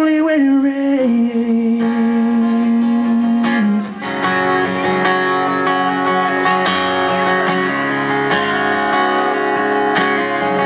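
Live country band playing the song's instrumental ending, led by strummed guitars. A held note bends downward and settles in the first second, then about four seconds in the full band comes in on a fuller chord with regular beats.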